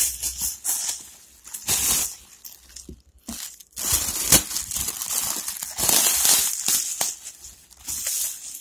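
White plastic wrapping crinkling and rustling in irregular bursts as hands pull it apart and open it, with a short pause about three seconds in.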